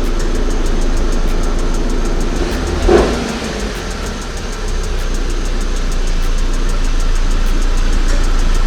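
Buick Regal Turbo's engine idling steadily, with one brief louder surge about three seconds in.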